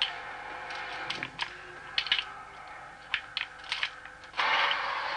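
Scattered sharp clicks and clacks at an uneven pace, like keys being struck, over a faint steady hum. About four seconds in, a louder steady rushing noise sets in suddenly.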